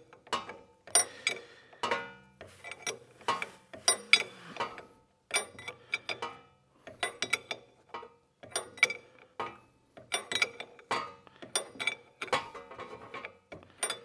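A metal wrench clicking and clinking on hydraulic hose fittings as they are tightened, in short irregular bursts of sharp metallic clicks with brief ringing.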